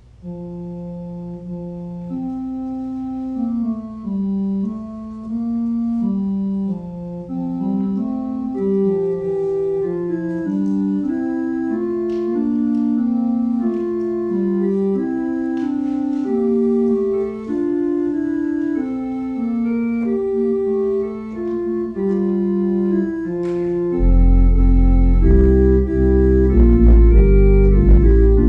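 Organ music: sustained notes moving in several voices, with a deep bass line entering about 24 seconds in and the music growing louder.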